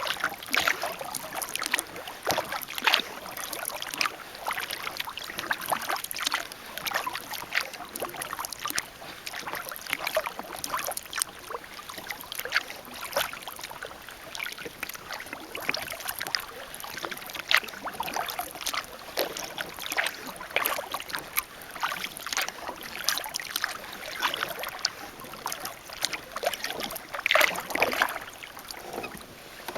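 Kayak paddle strokes: the blade dipping and splashing, with water dripping and small irregular splashes throughout.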